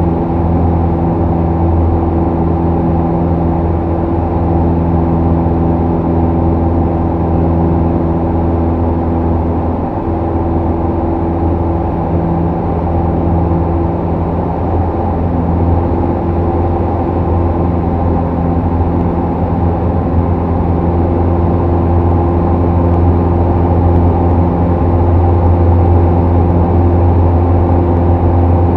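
Single-engine light airplane's piston engine and propeller droning steadily, heard inside the cockpit cabin, a little louder near the end.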